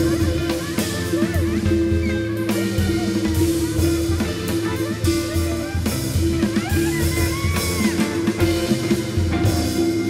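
A live jazz band blending Korean traditional music, with tenor saxophone, drum kit, electric guitar and a large gong struck with a padded mallet, playing over a steady held note. Gliding melodic lines rise and fall above it.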